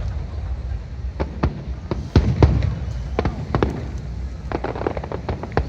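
Fireworks going off: a run of sharp crackling pops at irregular intervals over a low rumble.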